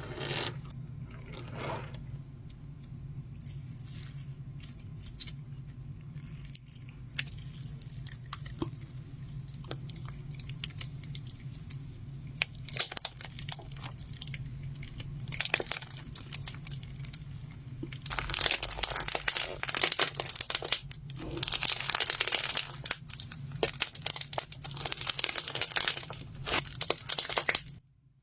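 Clear slime packed with frosted stones being squeezed and worked by hand: scattered crisp clicks and crunches as the stones shift, turning into a dense, continuous crackle about two-thirds of the way in that stops abruptly near the end.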